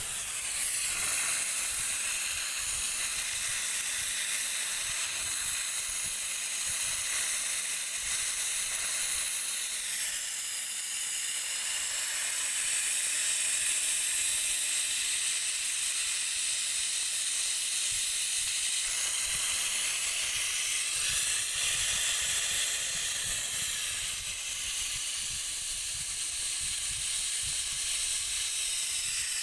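Steady hiss of pressurised gas blowing through a refrigerator-freezer evaporator's tubing while it is flushed to drive out the old compressor oil.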